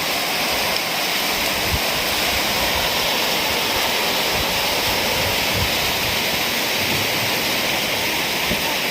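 Heavy rain falling steadily, a dense and even hiss.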